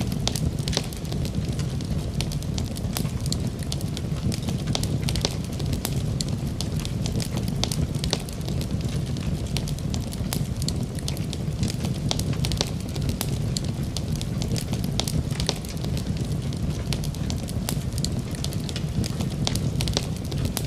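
A cooking fire under a pot of tahiri rice: a steady low rumble with frequent sharp crackles and sizzles throughout.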